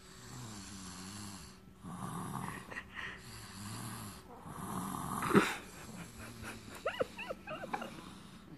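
Sleeping toddler snoring, three or four slow, raspy breaths. A sharp knock comes about five seconds in, then a few short high squeaks near the end.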